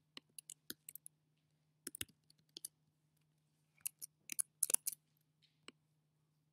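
Bursts of sharp computer clicks, mouse or trackpad clicks and key presses, in three quick clusters with the loudest a little under five seconds in, and a last single click near the end. A faint steady low hum lies underneath.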